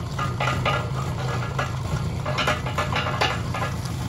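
Kubota K008-3 mini-excavator's small three-cylinder diesel engine running steadily, with scattered clicks and knocks as the arm and bucket are worked.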